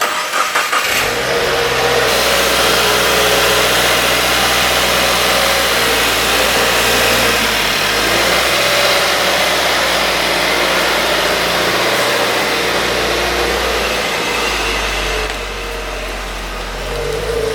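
2016 Subaru WRX's turbocharged flat-four engine running steadily, after a few short clicks in the first second. It gets a little quieter near the end.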